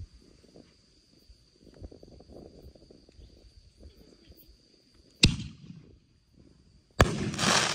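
Two firework bangs: one about five seconds in that fades quickly, and a second near the end followed by a dense crackling burst. Before the first bang a steady high insect trill runs, and it stops at that bang.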